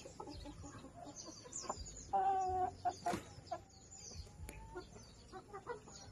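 Chickens clucking in short calls, with one louder, drawn-out call about two seconds in.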